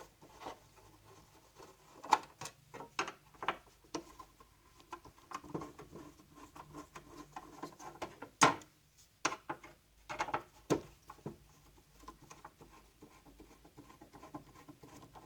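Screwdriver work on the plastic base of a Saeco Poemia espresso machine as its screws are undone: scattered clicks and taps with light scraping and rubbing, the sharpest click about eight seconds in.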